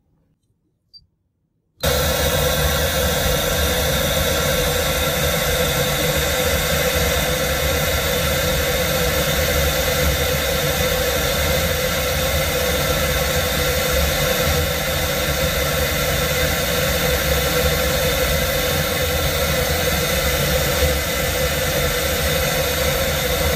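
Pink noise test signal played through a car's upgraded audio system, a steady hiss that starts about two seconds in. It is the measurement signal for a real-time spectrum analyzer checking the system's frequency response.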